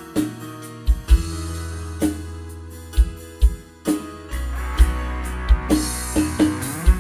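Instrumental intro of a Javanese campursari band: an electronic keyboard plays the melody over a bass line and regular drum hits. The band comes in fuller and louder about four seconds in.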